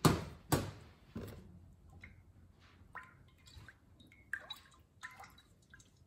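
Three sharp knocks in the first second and a half as a stainless steel pitcher of melted lip balm base is handled on a steel worktop, then a scattering of small, short plinks as a silicone spatula stirs the liquid in the pitcher.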